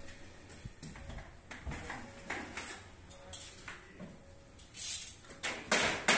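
Window-installation work noises: scattered knocks, scrapes and sliding sounds as glass panes and window sashes are handled and fitted into their frames. A few louder rushing scrapes come near the end.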